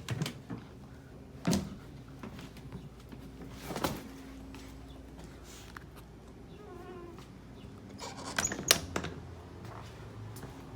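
Several separate knocks and thumps, the loudest near the end, over a steady low hum.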